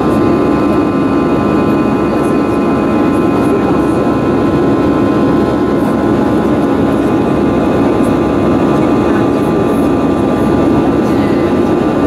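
Steady cabin noise of a twin-engine jet airliner climbing after takeoff, heard from a seat over the wing: a loud, even rush of engine and air noise with a few steady high turbofan tones running through it.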